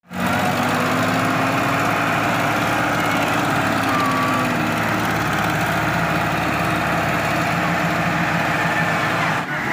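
Farm tractor's diesel engine running steadily under load, towing a lorry stuck in mud.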